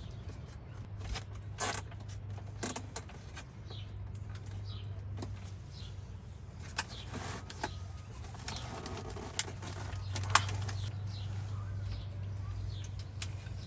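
Occasional sharp clicks and knocks from hands working on greenhouse shelving, over a steady low hum. Birds chirp faintly in the background.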